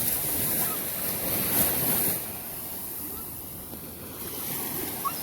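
Ocean surf washing onto the beach, swelling over the first two seconds, easing off, then building again near the end, with wind buffeting the microphone.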